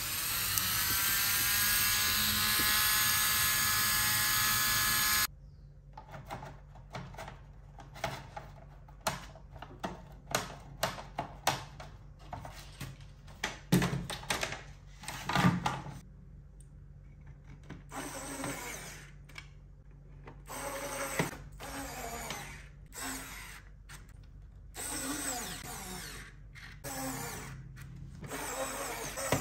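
Small handheld rotary tool with a cutting disc running against a white plastic piano key, a steady high whine that sinks slightly in pitch before cutting off suddenly about five seconds in. Then comes a string of clicks and knocks of plastic keyboard casing parts being handled, with two heavier knocks near the middle.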